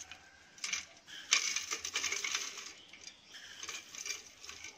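Crisp fried farsan and sev sprinkled by hand from a small steel bowl onto a steel plate, the dry pieces crackling and rattling as they fall and land. It is heaviest about a second in, then thins to scattered crackles.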